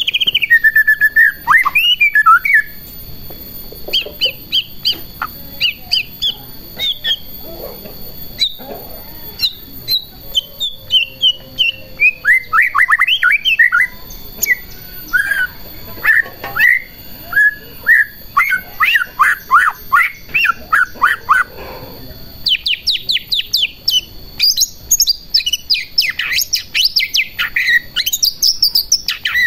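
White-rumped shama in full song, a loud, varied run of whistled phrases, glides and rapid repeated notes, growing denser and faster near the end.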